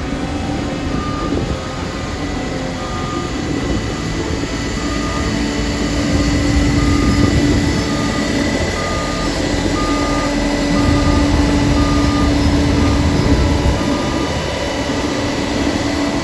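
Heavy paving machinery running with a steady low rumble and hum, a reversing alarm beeping about once a second over it.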